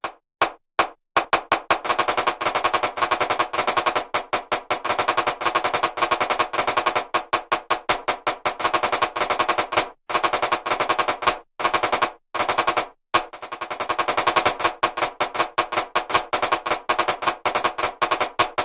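Programmed snare drum playing a marching-percussion rudimental exercise at 80 bpm: dense runs of rapid accented strokes, the right-hand strokes pitched slightly higher than the left, over a stick-click metronome. It opens with a few evenly spaced clicks counting in, and the run breaks off briefly about ten and twelve seconds in.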